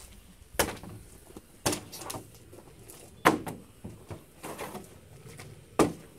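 Plastic water bottles being flipped and landing on a table: four sharp knocks, the loudest about three seconds in, with a few lighter taps between.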